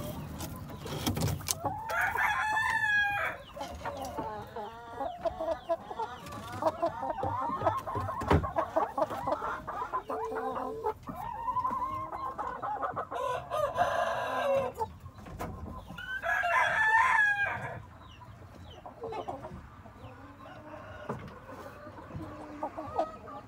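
Shamo rooster crowing twice, about two seconds in and again past the middle, each crow lasting a second and a half, with hens clucking in between.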